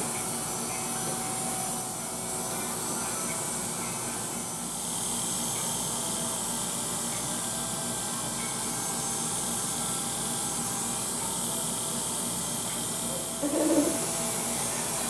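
Corded electric hair clipper running with a steady buzz as it cuts hair down close to the scalp. A brief louder sound comes near the end.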